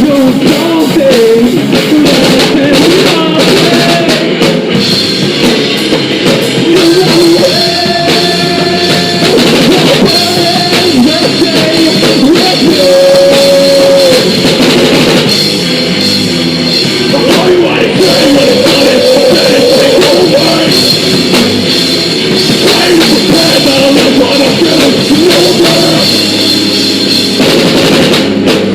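Live rock band playing loud: a drum kit driving the beat under electric guitars and bass, in a continuous stretch of a song.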